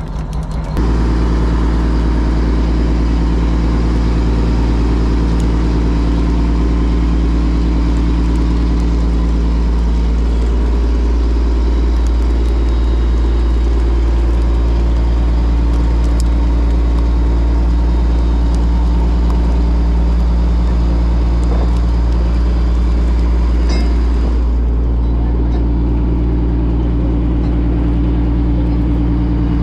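An engine running steadily at an even speed under a heavy low rumble. Its note shifts slightly about ten seconds in and again about three-quarters of the way through.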